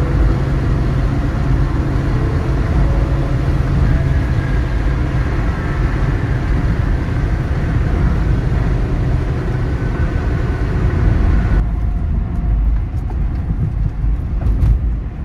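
Road noise inside a moving car on a highway: a steady low rumble of tyres and engine. About twelve seconds in, the upper hiss drops away abruptly.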